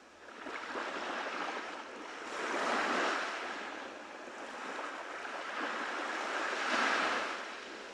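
Small ocean waves breaking and washing up on a beach, a steady rush of surf that swells twice, about three and seven seconds in.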